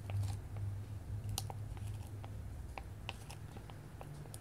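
Fingers squishing and kneading fluffy glue slime in a plastic container, giving scattered small wet crackles and pops, over a steady low hum.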